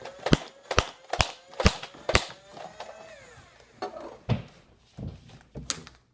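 Electronic outro music starting: a run of sharp drum hits about two a second, followed by a sliding synth tone and looser beats.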